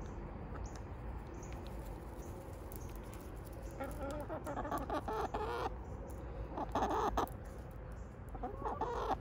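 Backyard hens clucking in a few short bouts, starting about four seconds in, as they crowd close begging for treats.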